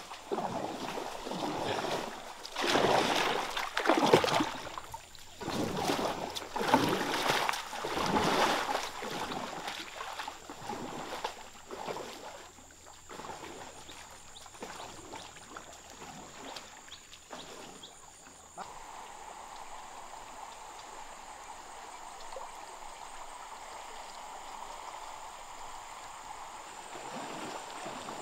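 Canoe paddle strokes in river water, swishing and splashing about once a second, then fading after about ten seconds. A sudden change about two-thirds in leaves a steady hiss of flowing water.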